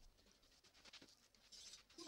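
Faint scraping of a steel knife blade being stroked across the 1000-grit side of a combination whetstone, getting louder about a second and a half in.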